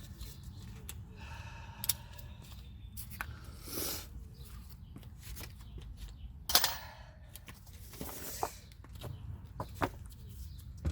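Hand tools knocking and scraping on a car's front brake assembly while a very tight part is worked loose, with a few sharp metal clicks, the loudest about six and a half seconds in.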